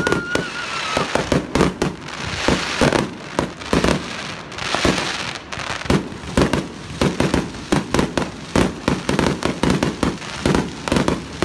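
Aerial fireworks bursting in quick, irregular succession: sharp bangs with stretches of crackling hiss between them. A faint whistle dies away in the first second.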